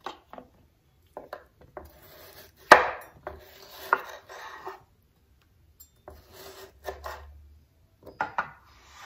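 Chef's knife slicing small tomatoes on a wooden cutting board: irregular knocks of the blade on the board, one much louder about two and a half seconds in, with softer slicing and scraping between them.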